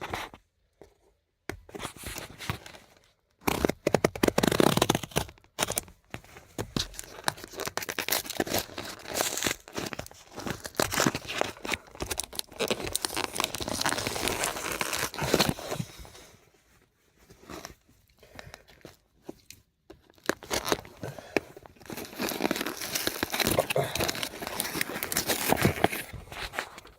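Packaging of a new replacement turn signal switch being cut and torn open with a multi-tool, the wrapping crinkling and tearing in irregular bursts, with a longer pause a little past the middle.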